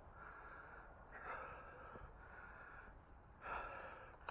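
A man breathing hard through the mouth, winded: three heavy breaths about a second apart, the last one the loudest.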